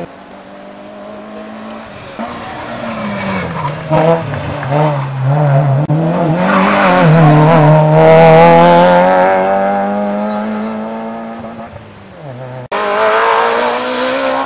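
Rally car engine at full throttle approaching along the stage, its pitch rising and dipping repeatedly, loudest about eight seconds in as it passes, then fading away. A sudden cut near the end brings in another rally car already close and running hard.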